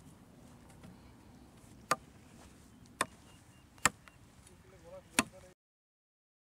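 A hatchet chopping into a wooden pole: four sharp blows, roughly a second apart. The sound cuts out suddenly near the end.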